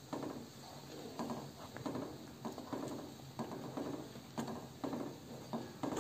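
A spatula stirring thick chili sauce in a metal pan: repeated wet scraping strokes, about two a second, as seasoning powder is worked in.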